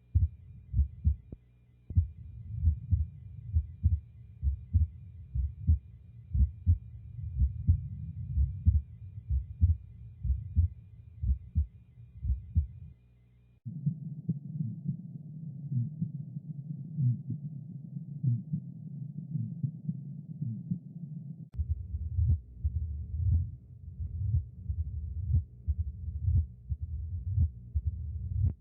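Recorded abnormal heart sounds, played one recording after another. First come low, regular heartbeats. About 14 seconds in, a recording with a continuous rushing murmur running through the beats takes over, and about 22 seconds in, another recording of sharper, regular heartbeats follows.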